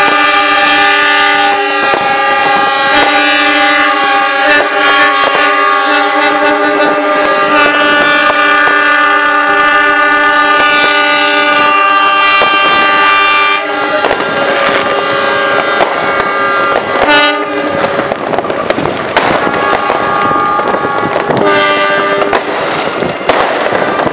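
Several diesel locomotive horns blowing long held chords together as the Semboyan 35 horn signal, with fireworks cracking over them. The steady horn blast breaks off about 14 seconds in, and shorter blasts come back in the last third.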